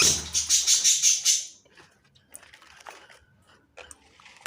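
A loud scratchy, rattling noise for about the first second and a half stops suddenly. Faint short chirps of budgerigars follow.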